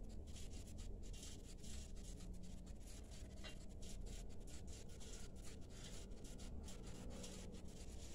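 Faint rustling and many small irregular clicks as hands place fried kefta and chicken pieces onto a flatbread on a plate, over a low steady hum.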